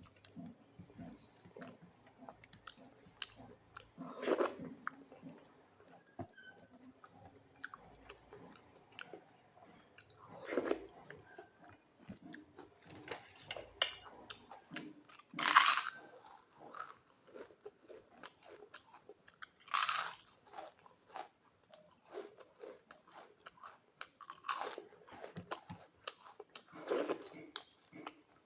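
Close-miked chewing and mouth sounds of someone eating rice with bottle gourd leaf saag and mashed potato: constant small wet clicks and smacks, with a louder mouthful about every five seconds, six times in all.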